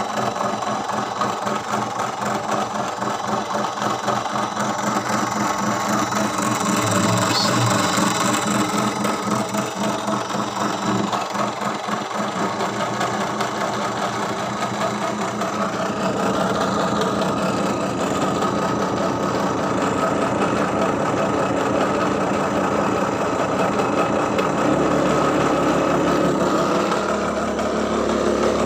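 RC boat motor driving through its gearbox on a test run: a steady mechanical running sound with a rapid pulsing rattle, shifting to a deeper tone about 24 seconds in.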